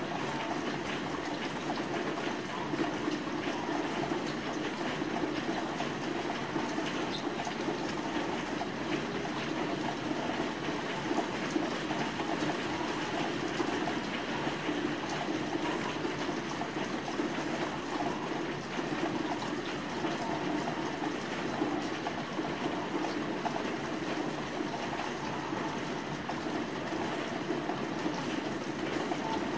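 Steady rain outside a window: an even hiss that does not let up, with no thunderclap.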